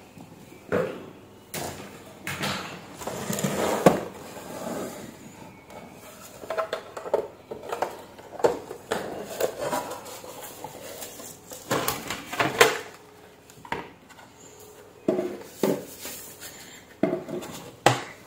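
Plastic bezel and casing of a Samsung LCD monitor being pried apart and handled: irregular sharp plastic clicks, snaps and knocks.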